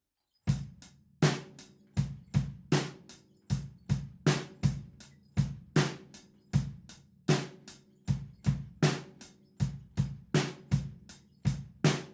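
Acoustic drum kit playing a slowed-down rock groove, starting about half a second in: hi-hat eighth notes, snare on 2 and 4, and a syncopated kick-drum pattern.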